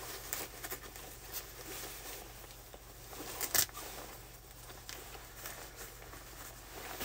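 Rustling of a parka's outer fabric and fur-trimmed hood as it is pulled up and adjusted around the collar, with a sharp click about three and a half seconds in.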